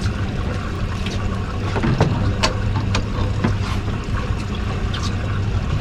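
Boat motor running steadily at low speed with a low, even hum. Several sharp knocks and clicks come about two to three and a half seconds in.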